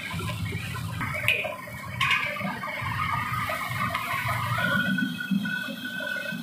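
Chillies and vegetables sizzling in hot oil in a wok as a metal ladle stirs them, with two sharp clinks of the ladle against the wok about one and two seconds in.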